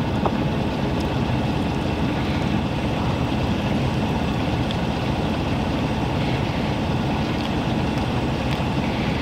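Steady low mechanical drone, like an engine running at idle, with a few faint clicks of chewing on top.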